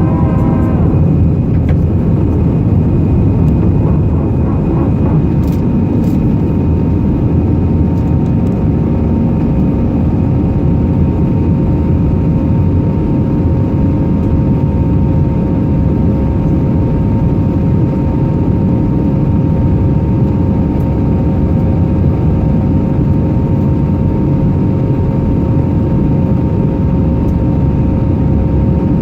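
Airbus A319's twin jet engines running at high thrust during takeoff, heard inside the cabin as a loud, steady rumble with a few steady whine tones over it.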